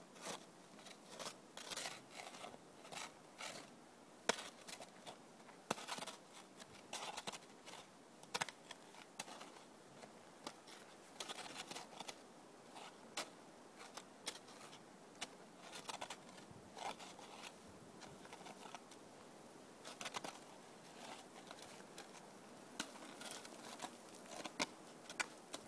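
A child's small plastic snow shovel scraping and crunching through snow in short, irregular strokes, about one or two a second.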